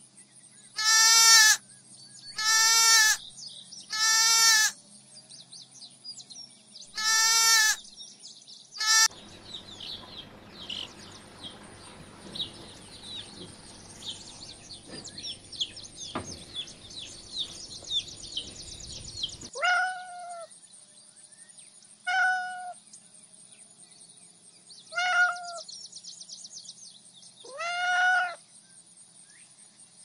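A lamb bleating in loud, wavering calls, about five in the first nine seconds. Then a flock of young chicks peeping continuously in high, short calls for about ten seconds. Then a cat meowing four times, a few seconds apart.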